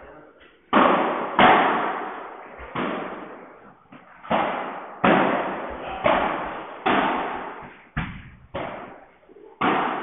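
Padel rally: the ball is struck by solid padel rackets and bounces off the court and walls, about ten sharp hits at irregular intervals. Each hit rings on and fades in a large echoing hall.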